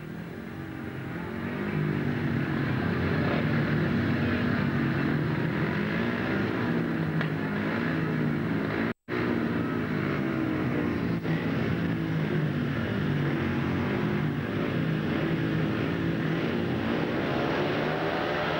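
Several speedway motorcycles, each with a 500cc single-cylinder methanol-burning engine, revving at the starting gate; their pitches rise and fall against one another. The sound grows louder over the first two seconds and cuts out completely for an instant about nine seconds in.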